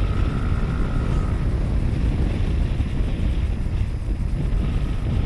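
Riding noise from a Yamaha NMAX scooter on its break-in ride: a steady low rush of wind on the microphone over the running engine, with a faint thin whine coming and going twice.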